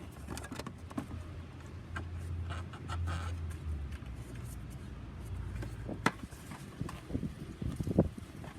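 Plastic engine-bay parts being handled and refitted: scattered clicks and knocks, a sharp knock about six seconds in and a quick run of knocks near the end, over a steady low hum.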